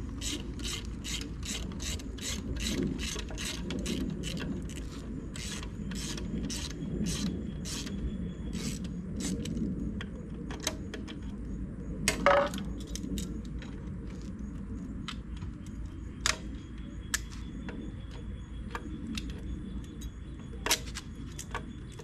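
Hand ratchet wrench clicking steadily, about three clicks a second, as bolts on the front of the engine are backed out. The clicking stops about ten seconds in, a louder clunk follows about two seconds later, and then there are only scattered single clicks.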